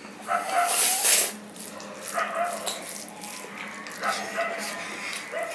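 Eating with the hands: fingers mixing rice and chicken curry on a steel plate, then chewing and sucking on a piece of chicken, with a loud wet slurp about a second in. A few brief high-pitched whines are heard three times.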